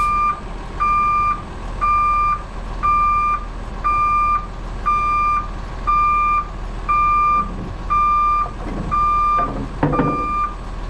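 Vehicle backup alarm beeping at a steady pitch, about one half-second beep each second, over a low steady engine hum. A short muffled sound comes in just before the end.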